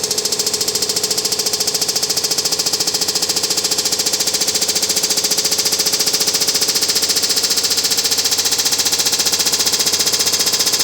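Samsung WD106 washer-dryer spinning at about 1400 RPM with a rapid, even knocking and rattling from inside the drum, a noise nobody can stand. It sounds as if the drum is hitting something inside, even with the spider arm newly replaced and the heating element removed.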